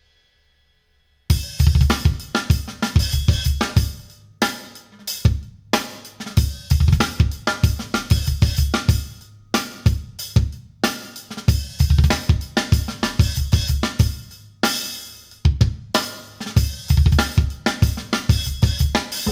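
Recorded drum-kit music, with kick drum, snare, hi-hat and cymbals in hard rhythmic hits and short breaks, played back through Monitor Audio Platinum 200 3G speakers driven by a McIntosh MA12000 amplifier. It starts about a second in, after silence.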